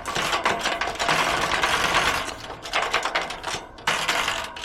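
A screwdriver tool working screws out of a gate lock, a fast mechanical rattle of clicks. It runs for about two and a half seconds, then comes in two shorter bursts near the end.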